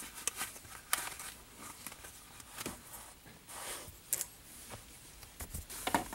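Scattered clicks and short rustles of hands working a shift boot and its plastic retaining ring off the old gear-shift knob, with the sharpest clicks about a second in, just after four seconds and near the end.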